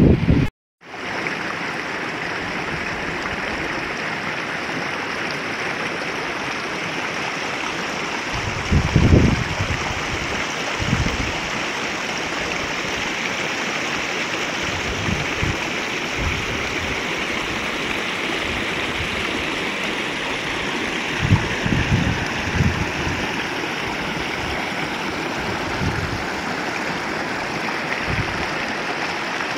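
Shallow stream running over stones, a steady rushing of water, with a few low thumps now and then.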